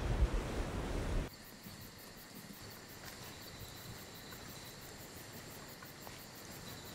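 Surf breaking on a beach with wind, cut off suddenly about a second in. Then night ambience of insects chirping in a high, evenly pulsing trill.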